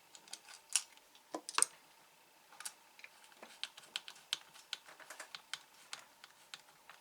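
Irregular small clicks and taps of a screwdriver driving a screw into the plastic housing of a Hakko FR-301 desoldering gun.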